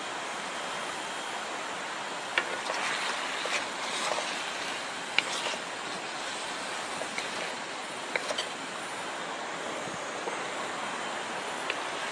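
Chicken and sauce frying in a pan on a stove: a steady sizzle, with a few sharp clicks of a spatula against the pan.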